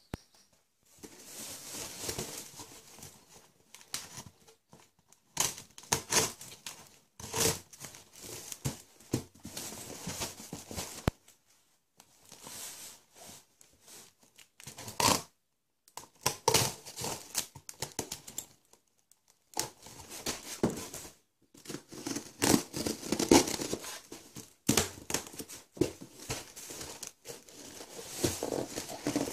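Packing tape being peeled and ripped off a cardboard box, with crinkling of plastic wrapping, in irregular bursts with short pauses between them.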